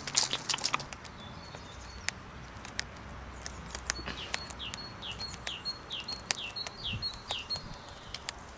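Rabbit gnawing a twig: sharp crunching clicks, thick in the first second and then scattered. Behind it a bird sings a repeated series of short down-slurred notes, about two a second, from about three and a half seconds in until near the end.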